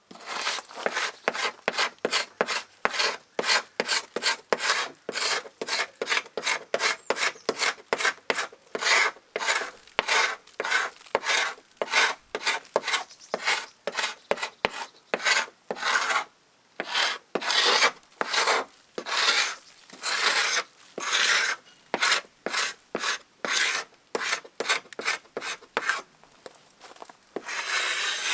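Paint scraper drawn in quick repeated strokes over a wooden boat hull, stripping old paint off the timber. The scrapes come about two to three a second, with a couple of short pauses.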